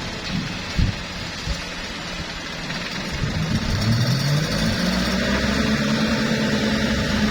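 Heavy diesel engine running low, with a couple of sharp knocks in the first second, then revving up about halfway through and holding at a higher, steady speed.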